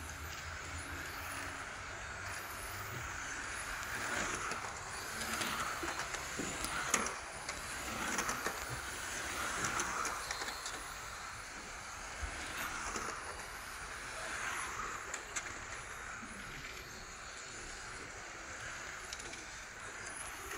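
Electric 1/10-scale RC touring cars with 13.5-turn brushless motors racing, their motor whine and tyre hiss swelling and fading as they pass. A sharp click about seven seconds in.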